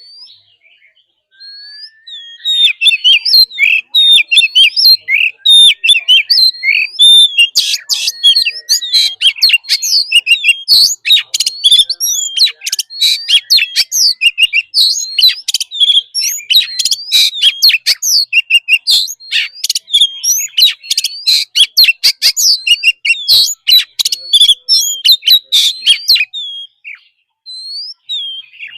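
Oriental magpie-robin singing a long, varied song of rapid whistled and chattering phrases, starting about two seconds in and trailing off to a few scattered notes near the end.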